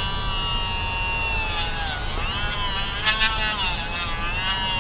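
Small handheld rotary tool running at high speed, its bit boring out the inside of a rubber O-ring seal to widen it for a fuel injector. It makes a steady high whine that dips in pitch a few times and recovers.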